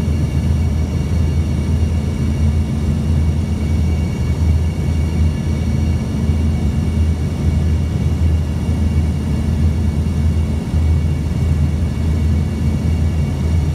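Airliner cabin noise during the landing approach with flaps extended: a steady, deep drone of the jet engines and airflow, with faint steady high whine tones over it.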